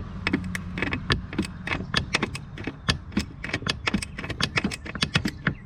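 Ratchet wrench clicking in quick, uneven strokes, several clicks a second.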